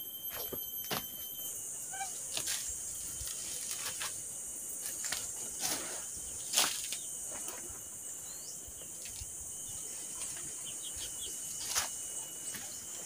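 Steady high-pitched insect buzzing of the forest, with footsteps crunching through dry leaves and undergrowth and twigs snapping. The loudest snap comes a little past halfway, and another comes near the end.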